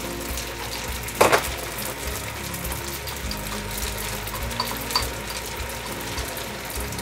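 Spaghetti sizzling and frying in a pan over a gas burner while sauce is scraped into it from a jar, with a single knock about a second in.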